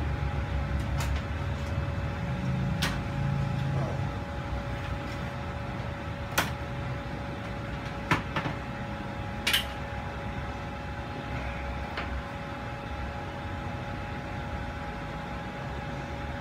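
A steady electrical hum with a low rumble under it, broken by a few sharp clicks and taps of small objects being handled, three of them louder near the middle.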